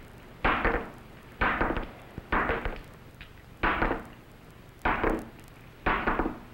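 Six sharp metallic clicks, one about every second, as a revolver is unloaded one cartridge at a time.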